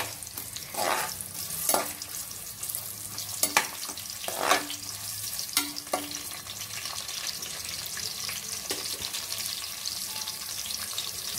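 Sliced onions sizzling in hot oil in an aluminium pressure cooker. For the first half a metal spoon scrapes and clinks against the pot several times as they are stirred, then only the steady sizzle goes on.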